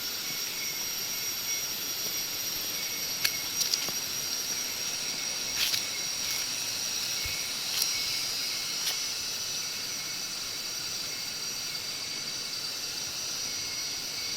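Rainforest insect chorus: a steady, high-pitched drone of several held tones, with a few faint clicks in the first half.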